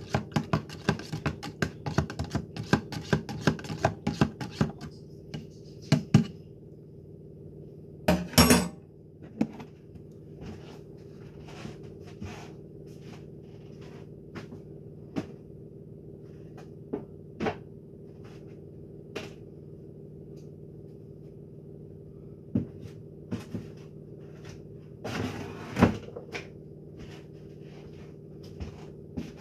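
A spoon stirring in a cup, clinking rapidly for the first five seconds or so. After that come scattered knocks and clicks over a steady low hum.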